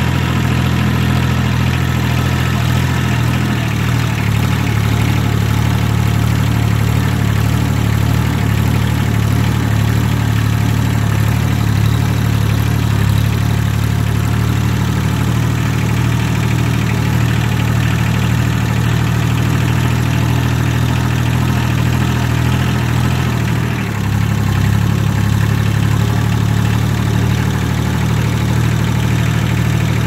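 Compact farm tractor's diesel engine running steadily at low throttle while it drives with a loaded front bucket, heard close up from the seat. Near the end, the engine note dips briefly and settles at a slightly different speed.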